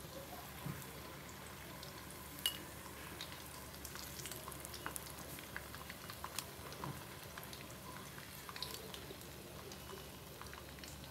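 Breaded silkworms deep-frying in hot oil: a faint steady sizzle with scattered small pops and crackles.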